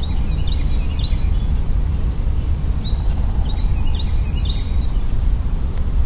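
Songbirds singing: several short chirps and downward-sweeping notes, with one held high whistle about a second and a half in, over a steady low rumble.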